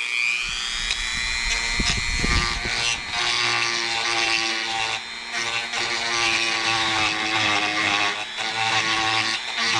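Dremel rotary tool spinning up and grinding into the plastic of a hard-hat ear-muff cup, opening a notch for a headset mic wire. A steady high whine that rises in pitch as it spins up at the start and stops at the end.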